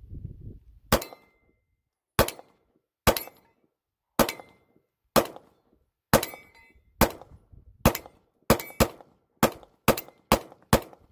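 Glock 43X 9mm pistol firing fourteen shots, about one a second at first and quicker toward the end. It runs the whole string without a stoppage: the PSA Dagger magazine feeds all fourteen rounds.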